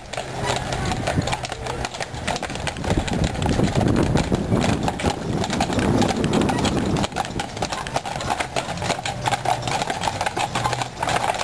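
Hooves of a team of Budweiser Clydesdale draft horses clip-clopping on asphalt as the hitch walks past, many hoofbeats overlapping in an irregular patter.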